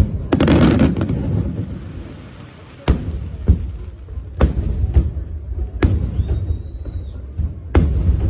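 Aerial fireworks shells bursting: a sharp bang followed by a dense crackling burst in the first second, then about half a dozen more sharp bangs at irregular intervals of half a second to two seconds.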